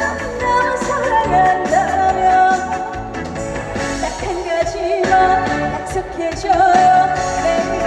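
Live trot music: a female singer holding long, wavering notes over an amplified band with bass and drums.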